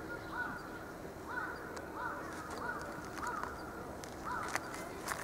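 A bird calling over and over, about eight short, arched calls evenly spaced, with a few sharp clicks near the end.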